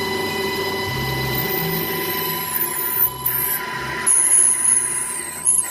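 Lathe with a gear-hobbing head running, a steady machine whine with high squealing sounds coming and going.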